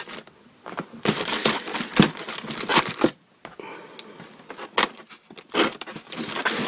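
Plastic packaging crinkling and rustling as parts are handled and pulled out of a box, with irregular crackles and scrapes.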